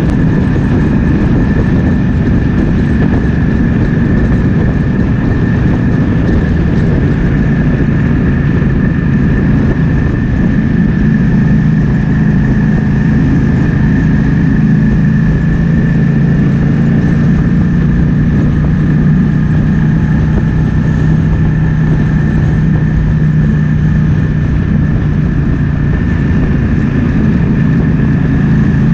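Triumph Speed Twin 1200's parallel-twin engine running steadily on the move, mixed with wind rushing past.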